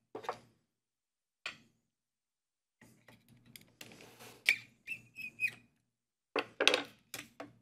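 Clicks, knocks and handling noises as the spindle of a Shaper Origin handheld CNC router is worked on by hand. A short high whistle-like squeak comes a little after halfway.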